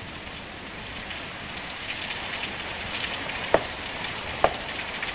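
Radio-drama sound effect of steady rain, growing slightly louder, with a few sharp taps about a second apart in the second half.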